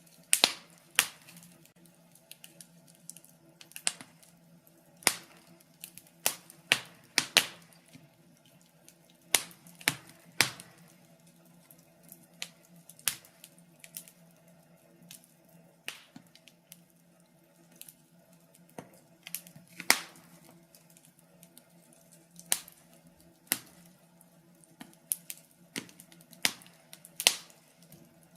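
Wood fire burning in a fireplace, crackling with irregular sharp pops and snaps, a few loud ones among many small ticks, over a faint steady low hum.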